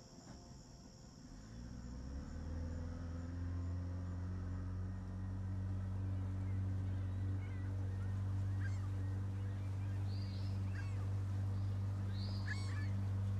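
A small motorboat's engine running at a steady low hum, fading in over the first couple of seconds. From the middle on, birds give short scattered calls.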